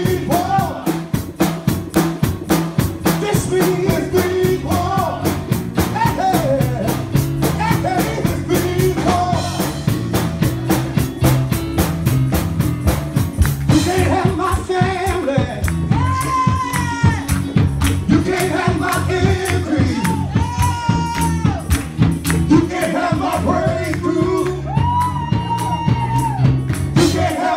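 Upbeat gospel music with a fast, driving drum beat and tambourine, and singing voices that come to the fore about halfway through.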